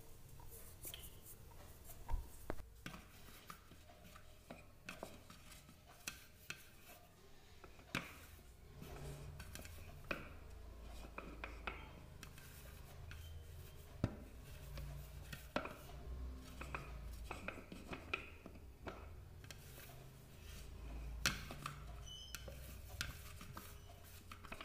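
Faint, scattered light taps and clicks of sliced bitter gourd rounds being handled and set down by hand on a plate.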